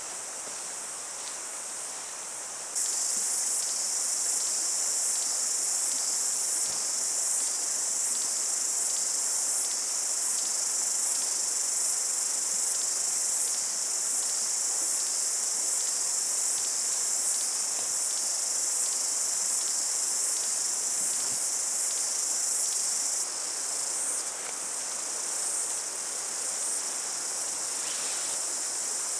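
A dense chorus of cicadas, a shrill continuous drone with a fine pulsing texture. It gets louder about three seconds in and eases a little in the last few seconds.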